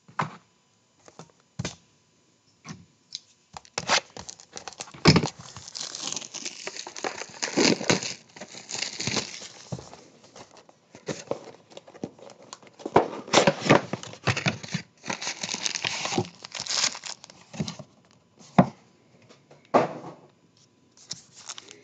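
Plastic card-pack and box wrapping crinkling and tearing as baseball card packs are opened, in irregular crackly spells with sharp taps of cards and cardboard being handled. The crinkling is densest through the middle, with only scattered taps at the start and near the end.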